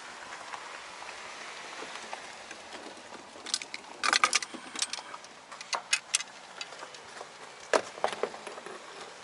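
A steady outdoor hiss, then clusters of sharp clicks and rattles starting about three and a half seconds in, with a last few clicks near the end.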